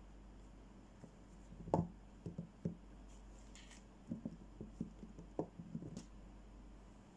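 Bars of unwrapped bath soap knocking and tapping against each other as they are picked up and set down in a pile: the firmest knock a little under two seconds in, then a few light taps, and a longer run of taps in the last third.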